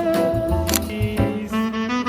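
Background jazz music with a saxophone playing the melody over a walking bass line.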